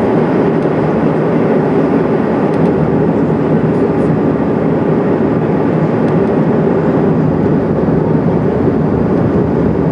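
Steady, loud cabin noise of an airliner in flight: an even drone of engines and airflow that does not change.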